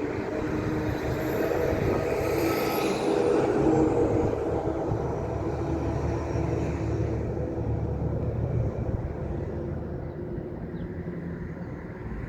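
A train passing by, loudest about three seconds in, with a high whine that drops in pitch as it goes past, then running on and slowly fading.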